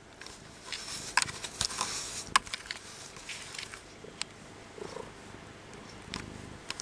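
A cat tussling with a handheld camera and a hand: rustling and sharp clicks of handling against the microphone, densest in the first couple of seconds, over a faint low rumble from the cat.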